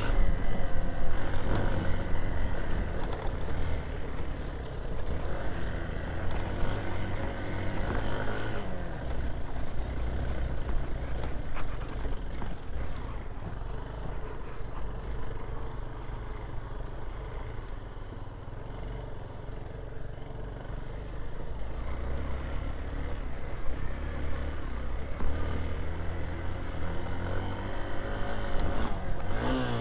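Hero XPulse 200 single-cylinder motorcycle engine running under way on a rough dirt track, with a low rumble of wind and road underneath. It eases off through the middle and picks up again near the end.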